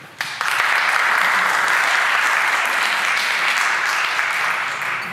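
Audience applauding, starting just after the beginning and dying away near the end.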